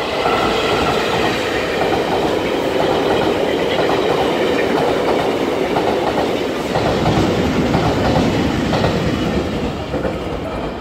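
Electric locomotive E315 hauling a Taroko Express tilting train set through the station. It makes a loud, steady rumble of wheels on rail, with a run of clicks over rail joints partway through, easing off near the end.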